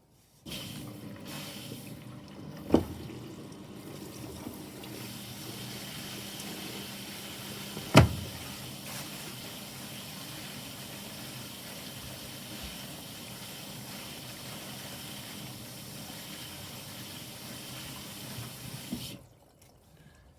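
Bosch washing machine taking in water: a steady rush of water into the drum that starts suddenly and cuts off suddenly after about 19 seconds, as the inlet valve opens and closes. Two sharp clicks sound during the fill, about 3 and 8 seconds in.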